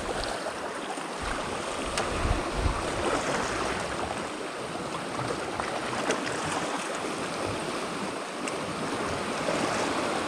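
Sea water washing steadily against the shore, with a few faint clicks.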